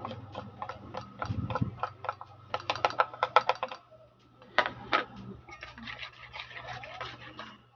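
A spoon tapping and scraping flour off a plastic plate into a pot, with a quick run of clicks and then a couple of louder knocks about halfway through. After that, lighter clicks of the spoon against the pot as the dry flour is stirred in.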